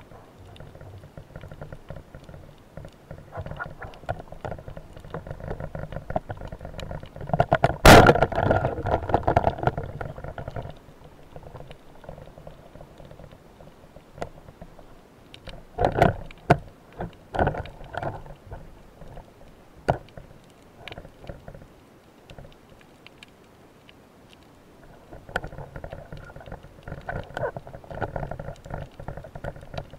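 Underwater recording: a Pathos 90 roller speargun fires with one sharp, loud crack about eight seconds in, followed by a couple of seconds of louder churning noise. Later come several sharp knocks and clicks, over a steady low underwater hiss and rumble.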